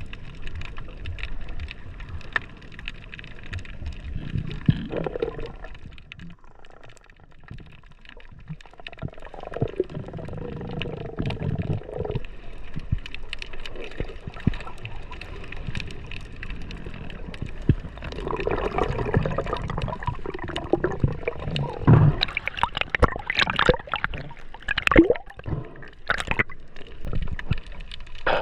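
Water gurgling and sloshing, with many short clicks and knocks throughout and a few louder knocks near the end.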